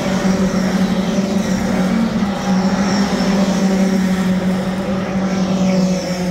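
Ginetta G40 race cars' engines running as a line of them passes through a corner, a steady engine drone from several cars together.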